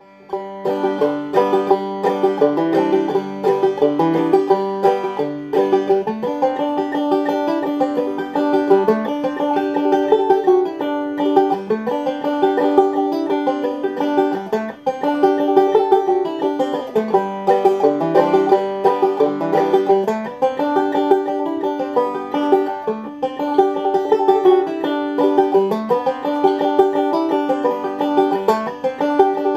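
Resonator banjo played in melodic clawhammer style: a steady stream of quick plucked notes.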